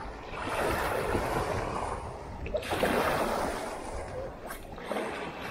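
Small waves washing and splashing against a rock groyne, in about three long surges.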